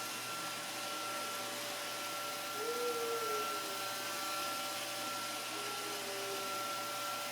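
iRobot Roomba robot vacuum running with a child riding on top of it: a steady whirring hum with a thin, steady high tone.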